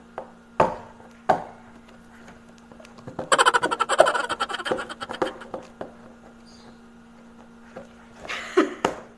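Packing tape being pulled and peeled off a cardboard box. A few sharp clicks come in the first second or so, then a long crackling rip of tape starts about three seconds in and lasts about two seconds. A faint steady hum runs underneath.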